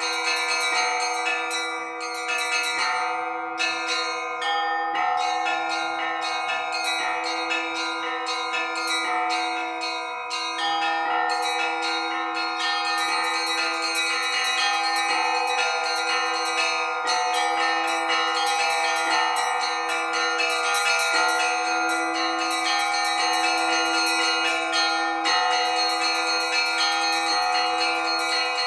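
Russian Orthodox church bells rung together in a continuous peal: small bells struck in quick rhythmic patterns over the steady hum of larger, lower bells.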